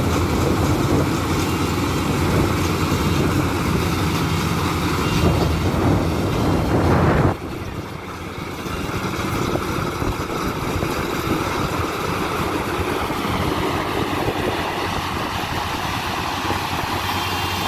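Rice combine harvester running steadily as it harvests, a continuous machine drone. About seven seconds in it drops suddenly quieter and then carries on at that lower level.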